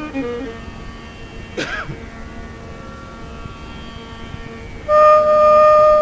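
Carnatic bamboo flute in an unaccompanied raga alapana in Shanmukhapriya: an ornamented phrase with sliding pitch ends just after the start, a few seconds of the steady tambura drone follow, and a long steady held note begins near the end.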